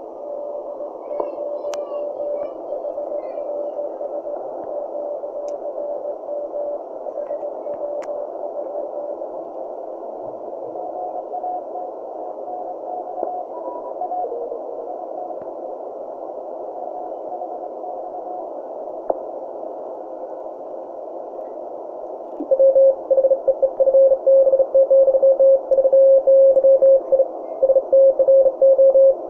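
Audio from a homemade QRP CW transceiver's receiver, tuned by an Arduino and Si5351 synthesizer in the 20 m CW band. Band hiss comes through a narrow filter, with faint Morse tones at different pitches drifting in and out as the dial is turned. About 22 seconds in, a strong Morse code signal comes in, a single tone keyed rapidly on and off.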